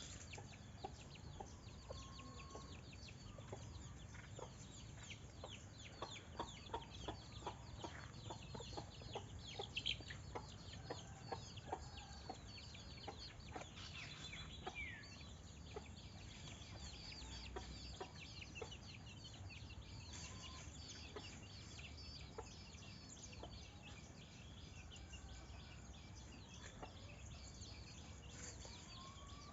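Chickens clucking in faint outdoor ambience, with a run of short clucks in the first half and small birds chirping high above. A steady low hum runs underneath.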